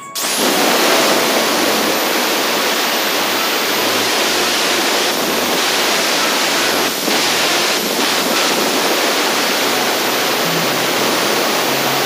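Angle grinder with a cut-off disc cutting through a metal plate: a loud, steady grinding rush with a high motor whine over it.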